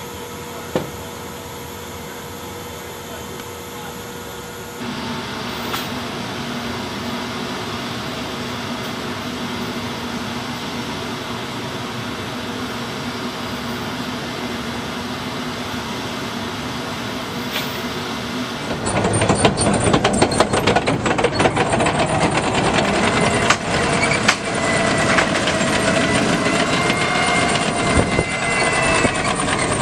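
Steady mechanical hum, then, about two-thirds of the way through, the louder clatter and wavering squeal of an M1 Abrams tank's steel tracks as it drives down a ship's steel loading ramp.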